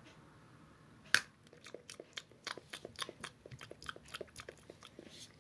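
A person bites into a crunchy chocolate-and-nut treat, one sharp crack about a second in, then chews it with a run of crisp crunches at about four a second.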